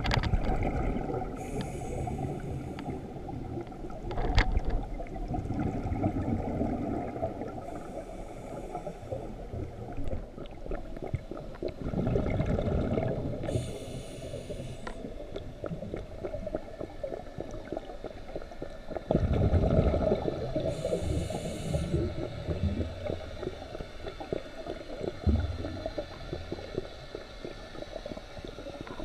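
A scuba diver breathing underwater through a vintage Scubapro MK V regulator: a short high hiss of inhaled air from the demand valve four times, about six seconds apart, alternating with the low bubbling of exhaled air.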